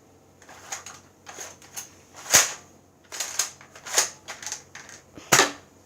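Nerf blaster being handled and fired: a run of sharp plastic clacks and pops, with the two loudest about two and a half seconds in and again near the end.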